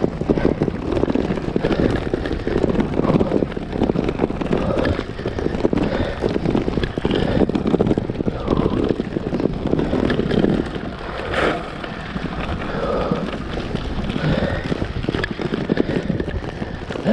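Road bike rattling and jolting continuously over cobblestones, the frame and bars shaking hard on the pavé, with wind buffeting the microphone.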